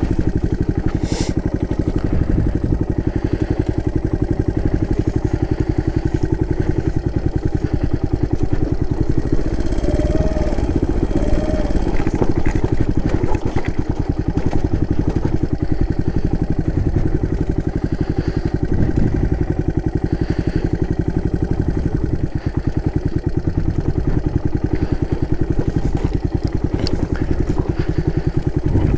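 Suzuki DR200's single-cylinder four-stroke engine running steadily as the motorcycle is ridden along a trail.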